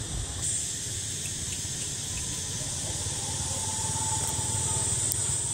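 Steady high-pitched insect drone, cicada-like, switching on about half a second in, over a continuous low rumble.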